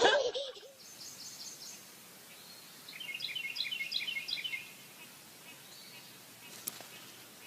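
A small bird chirping: a quick run of short, high chirps lasting about a second and a half, over steady background noise, with a single sharp click near the end.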